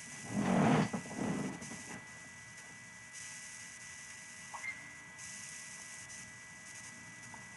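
Steady electrical hum with a thin high tone running through it. A short breathy, rustling noise comes about half a second in and is the loudest sound; a faint click follows near the middle.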